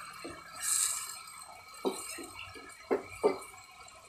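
Wooden spatula scraping and knocking in a frying pan while diced chicken and garlic fry, with a short sizzling hiss a little under a second in. About six strokes, unevenly spaced.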